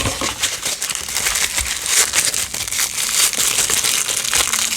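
A blind-box toy's wrapper crinkling and crackling as it is handled and opened by hand.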